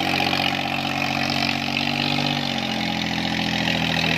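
Swaraj 855 tractor's three-cylinder diesel engine working under heavy load, hauling a loaded trolley through deep sand. Its revs sag about two and a half seconds in, then hold steady at a lower pitch.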